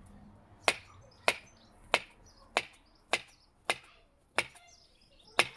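Kitchen knife slicing a banana into rounds on a plastic chopping board. The blade knocks sharply on the board eight times in an even rhythm, about one cut every two-thirds of a second.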